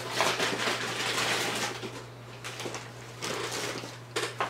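Plastic bag rustling and crinkling as it is handled, in several uneven bursts, the longest at the start.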